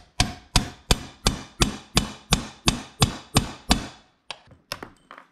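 Hammer striking a pin punch, metal on metal, driving the roll pin out of an NP435 transmission's third/fourth shift fork. About eleven steady blows, about three a second, then a few lighter taps near the end.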